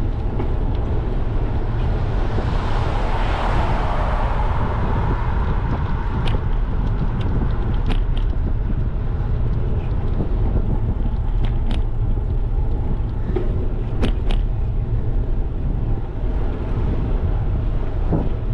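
Wind buffeting a GoPro microphone while cycling, a steady low rumble. A car passes about three seconds in, and a few sharp clicks come later.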